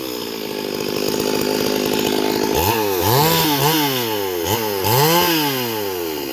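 Two-stroke chainsaw idling, then revved up and back down in a string of short blips from about two and a half seconds in.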